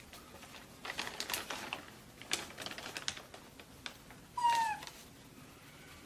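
Plastic bag rustling and crinkling in two stretches as a baby monkey rummages in it, then one short, high squeak from the monkey, falling slightly in pitch, about four and a half seconds in.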